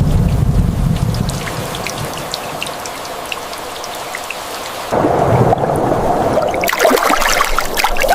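Thunderstorm: rain falling with a low thunder rumble that fades over the first couple of seconds. About five seconds in a sudden louder rush comes in, and near the end the rain turns heavier, with dense splashing drops.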